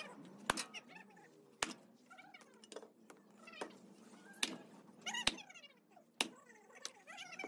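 Sledgehammer blows smashing a scrap cast-metal electric motor end cover on hard dirt: about five sharp, irregularly spaced strikes. Wavering, meow-like calls can be heard between the blows.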